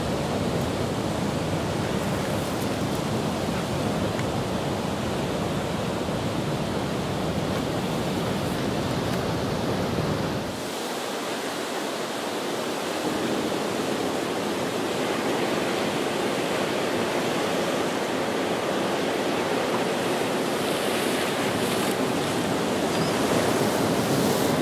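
Surf breaking on a river-mouth bar, a steady wash of waves. A low rumble drops away suddenly about ten seconds in.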